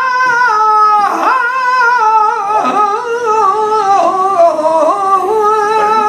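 Male flamenco singer holding one long, ornamented vowel in a colombianas, the melody winding slowly downward through a series of turns and climbing back up near the end.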